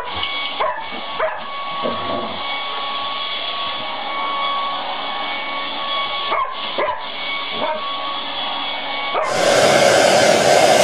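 Hair dryer running with a steady whine while a dog gives short yips and whimpers, a few in the first two seconds and more around six to eight seconds in. Near the end the blowing turns abruptly louder and fuller.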